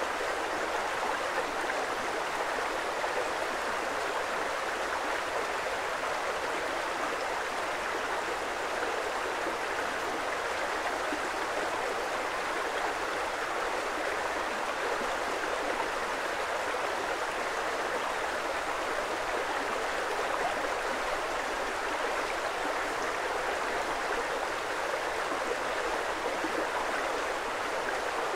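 Creek flowing: a steady, even rush of water with no single splashes or other sounds standing out.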